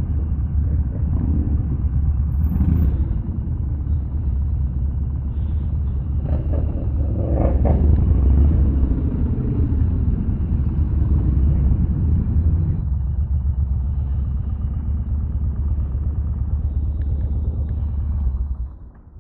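Yamaha Bolt motorcycle's air-cooled V-twin running steadily under way, a continuous low rumble that fades out near the end.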